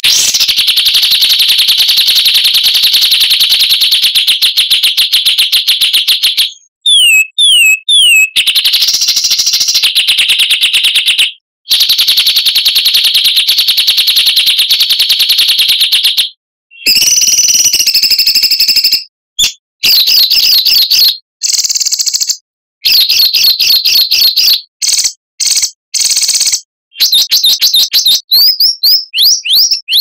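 Songbird song from a 'masteran' training track for pet birds: loud, high-pitched dense trills, with two long unbroken trills in the first half broken by a few quick downward-sliding notes. It changes to short choppy phrases from a little past halfway and ends in rapid series of rising notes.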